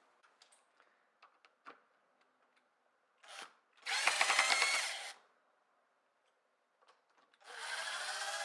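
Power drill run in short bursts to back out the screws of an old deadbolt: a few light clicks, a brief blip about three seconds in, a run of about a second, then a longer run starting near the end.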